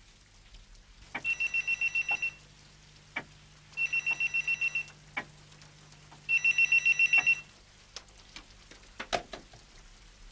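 Electronic push-button telephone ringing: three warbling trills, each about a second long with a rapid pulse, roughly two and a half seconds apart. A few soft clicks follow near the end.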